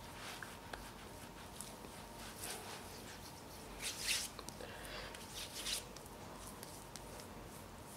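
Faint soft rubbing of fingertips spreading and blending primer over facial skin, a few short brushing strokes, the loudest about four seconds in.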